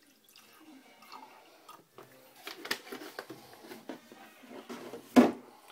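Light clicks and taps, a cluster of them about two and a half seconds in, then one much louder knock about five seconds in.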